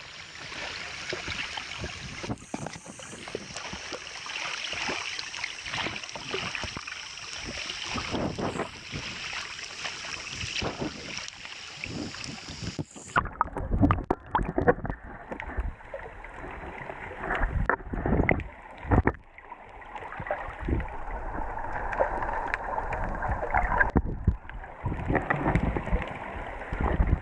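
Water sloshing and bubbling against a waterproof action-camera housing while snorkeling: a steady muffled hiss at first, changing abruptly about halfway through to duller water sounds with many knocks and thumps from splashing and handling of the camera.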